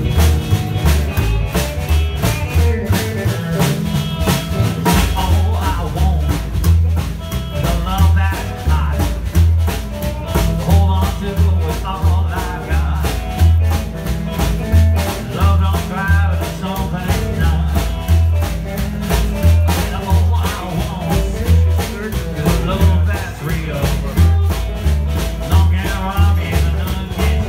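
Live band playing an up-tempo number: an upright bass thumping out a steady pulse under a snare drum and strummed acoustic guitar.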